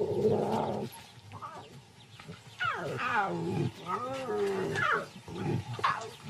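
Lion cubs growling and yowling as they wrestle: a series of short calls that bend up and down in pitch, with a quieter lull after the first second.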